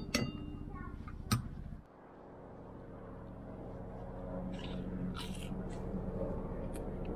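A metal spoon clinks sharply against a ceramic plate a few times in the first second and a half as a crispy fried aubergine pakora is cut. A low steady hum follows, with a few faint crunches of the pakora being chewed near the middle.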